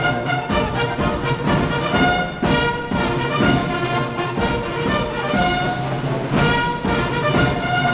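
Military march played by a French batterie-fanfare: bugles and trumpets holding bright chords over drum and cymbal strokes on a steady beat about twice a second.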